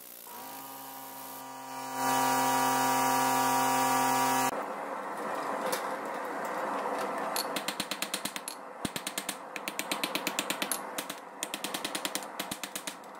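A steady humming tone glides up in pitch as it starts, gets louder about two seconds in, and stops suddenly. Then a hand hammer strikes a hot canister-damascus billet of forge-welded nails, screws and staples on a steel anvil, in three quick runs of about six blows a second.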